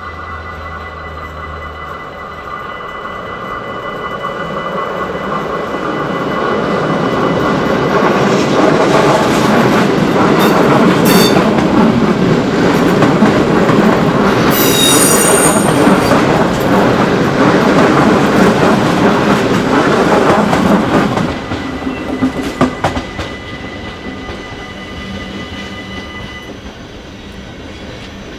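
Electric NS Sprinter passenger train passing close by, its wheels running loud over the rails, with a sharp wheel squeal about halfway through before the noise drops away. A steady level-crossing warning bell rings throughout and stops near the end as the crossing clears.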